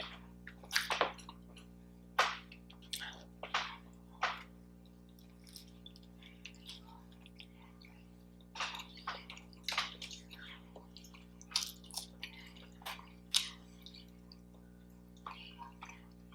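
Someone chewing food close to the microphone: short, irregular mouth clicks and smacks, over a faint steady hum.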